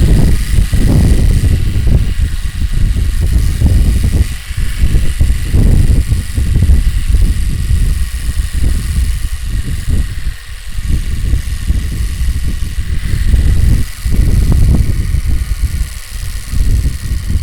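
A playing card clipped to a bicycle frame, flapping against the spokes of a turning wheel. It makes a rapid, engine-like buzz that dips briefly in loudness several times.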